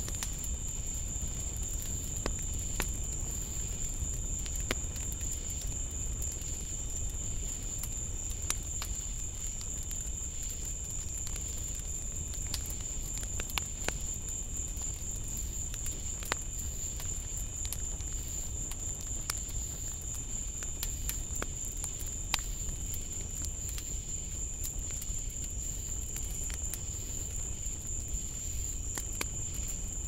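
Night insect chorus: a steady high-pitched trill that never lets up, over a low rumble, with scattered faint clicks.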